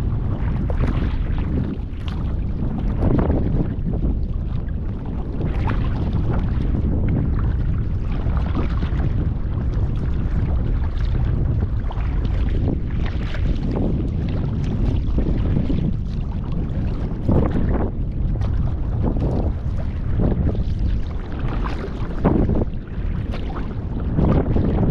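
Paddle strokes splashing from a Feathercraft folding sea kayak under way, about one stroke every one to two seconds, over steady wind rumble on the microphone.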